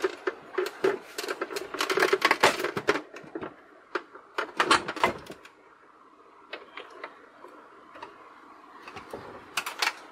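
Hard plastic parts of a water dispenser's housing clicking, rattling and knocking as they are handled and worked loose. The clatter is busiest in the first half, then thins to scattered light clicks after about five and a half seconds.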